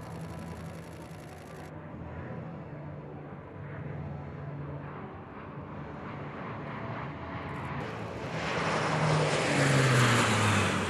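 Four-engine turboprop transport, the Blue Angels' C-130J Hercules, flying by with a steady propeller drone. The drone grows much louder about two-thirds of the way in as the aircraft passes close, and its pitch drops as it goes by.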